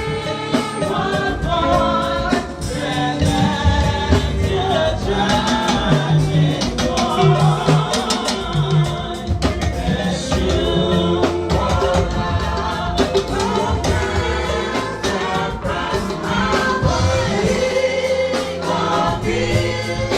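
A church choir and congregation singing a gospel hymn together, with drums beating underneath.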